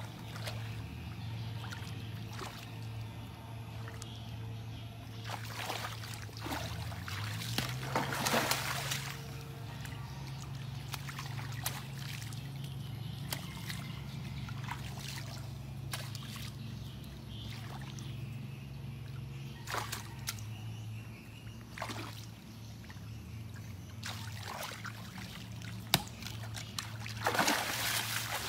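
Splashing and sloshing in shallow muddy water, with sharp irregular splashes as a long stick is struck and dragged through it, loudest near the end. A low steady drone sits under it, stepping in pitch twice.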